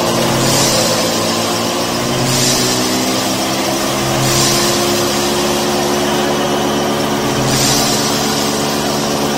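A machine runs steadily with an engine-like hum, its low tones drifting slightly in pitch, while a hiss swells and fades every second or two.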